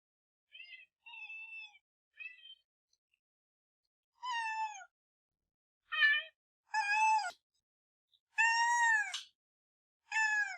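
A kitten meowing repeatedly: about eight separate high-pitched meows, the first three faint and short, the later ones louder and longer.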